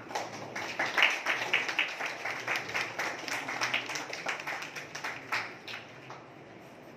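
Applause: hands clapping in quick, irregular strikes that start suddenly and die away about six seconds in.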